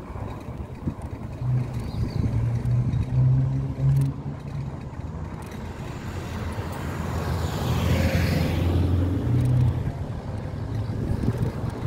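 Street traffic: a motor vehicle's engine humming nearby, with a louder rush of a vehicle passing about two-thirds of the way through.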